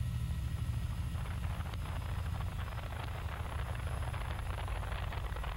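Helicopter engine and rotor noise heard on board, a steady low drone with a hiss that comes up about a second in.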